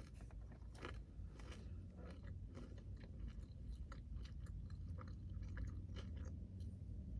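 A person chewing food close to the microphone, with faint, irregular wet mouth clicks throughout.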